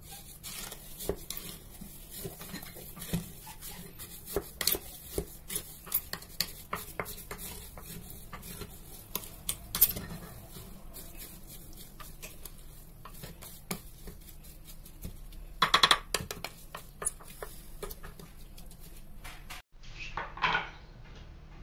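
Wooden spoon stirring sugar and chopped watermelon in a glass jar, knocking and clinking against the glass many times. A louder clatter of knocks comes about sixteen seconds in, and a short burst of handling noise comes near the end.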